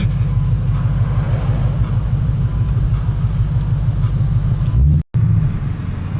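Cabin sound of a tuned 2017 Ford Mustang GT's 5.0-litre Coyote V8 cruising at steady revs: a low, even drone with tyre and road noise. The sound cuts out for an instant about five seconds in, then carries on the same.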